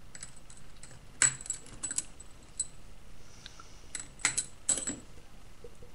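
Long steel nails clinking against one another as they are picked by hand out of a cardboard box: a string of sharp metallic clicks with a light ring, loudest about a second in and again around four to five seconds in.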